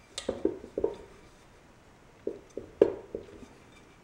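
A handful of light knocks and clunks, spread irregularly with quiet gaps, as the electric motor's shaft and cast front end bell are gripped and handled; the sharpest knock comes near the end.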